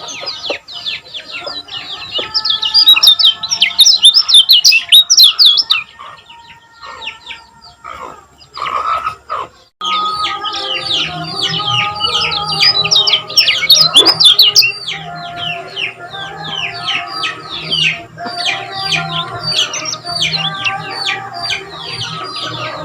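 Kecial kuning white-eye singing: fast runs of high, sharply falling chirps. The song breaks off for a few seconds about a quarter of the way in, then resumes, over a steadier, lower layer of other sound.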